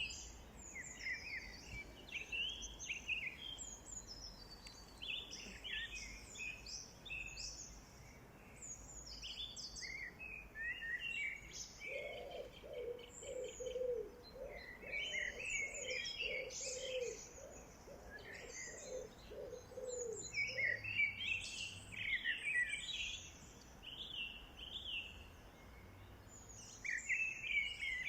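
Several songbirds chirping and singing in quick, overlapping phrases. In the middle, for about eight seconds, a lower call repeats steadily, a dozen or so notes in a row.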